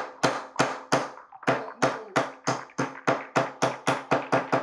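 A solid-plastic 3D-printed hammer striking a thick nail in a block of wood again and again, the blows quickening from about three to about five a second. A faint steady ring sounds under the strikes.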